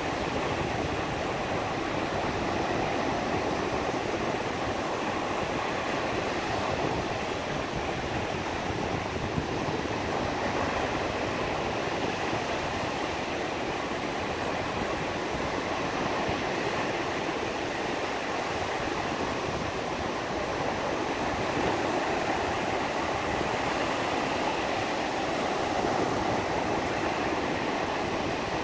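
Black Sea surf breaking and washing up a sandy beach, a steady rush of waves with slight swells in level.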